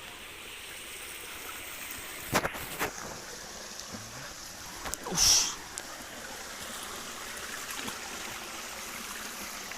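Small stream flowing steadily, with a few sharp knocks about two and a half seconds in and a short loud rushing noise about five seconds in.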